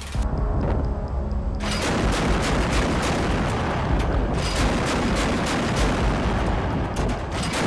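MK 38 25 mm chain gun (M242 Bushmaster) firing rapid bursts, starting about a second and a half in.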